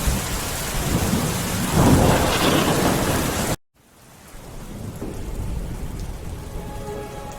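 Steady heavy rain with a low rumble of thunder swelling about two seconds in. The sound cuts out abruptly after about three and a half seconds, then the rain fades back in, quieter.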